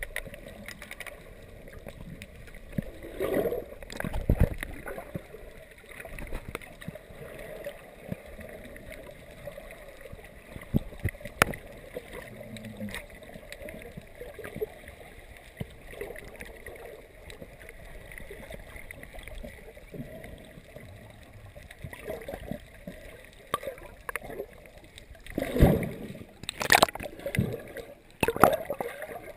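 Muffled underwater sound from a GoPro in its waterproof housing held below the surface: a steady wash of moving water with scattered knocks, a few louder ones near the end.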